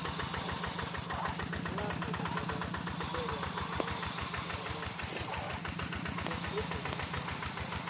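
Single-cylinder diesel engine of a two-wheel hand tractor running steadily with a fast, even chugging while it pulls a moldboard plow through the field. A short hiss comes about five seconds in.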